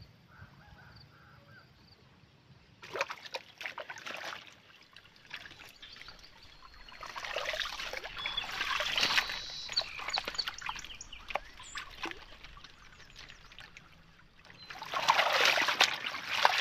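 Hands swishing a bunch of freshly picked lotus flowers through shallow water, splashing and sloshing in three spells. The first is short, a few seconds in; the second comes about halfway; the last, near the end, is the loudest.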